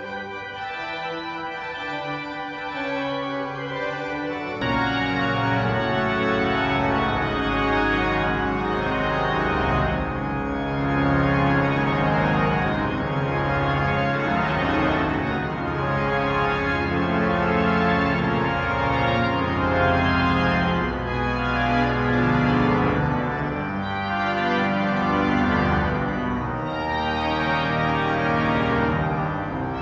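Pipe organ playing sustained chords, growing louder and fuller about four and a half seconds in.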